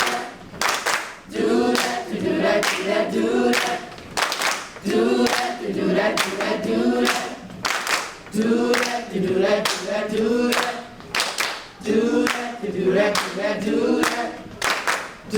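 Middle school chorus singing in short phrases with brief breaks between them, over steady hand claps about two a second.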